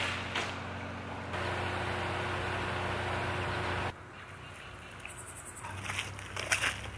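Steady traffic rumble under a concrete bridge, louder for a few seconds, then cut off abruptly. After that comes quieter river-bank ambience, with footsteps crunching and squelching as a wader walks out of shallow water onto leaf-covered ground.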